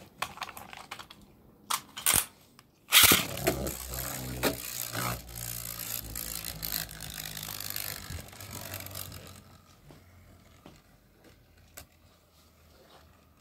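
A few clicks and two sharp knocks, then about three seconds in a Hasbro Beyblade Burst top is launched into a plastic stadium with a sudden loud rip. The top whirs and scrapes on the stadium floor for about six seconds, then fades to a faint, quiet spin as it settles.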